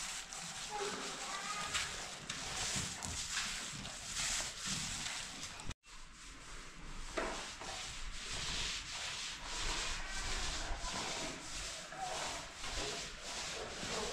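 Repeated hand strokes rubbing and sanding against a plastered wall, about two a second, a dry scratchy scrubbing that stops for an instant about six seconds in.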